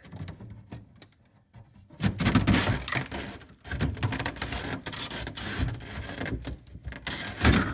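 Freezer rear panel being pried and pulled loose, scraping and cracking with a run of sharp snaps and a loud knock near the end.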